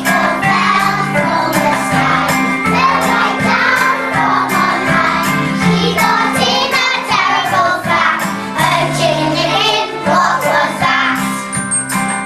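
Young children singing together over musical accompaniment with a steady beat.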